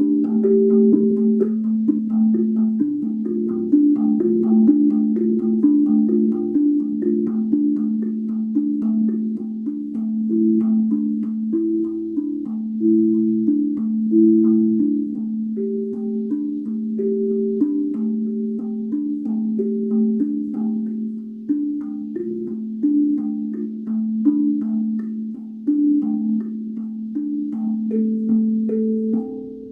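Guda steel tongue drum played by hand: a slow melody of struck notes that ring on and overlap, over a low note that keeps sounding beneath them.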